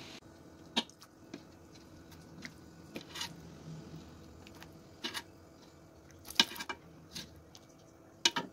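A metal ladle knocking and scraping against an aluminium wok while scooping out tofu and broth, a string of short, irregular clinks, the loudest about six and a half seconds in.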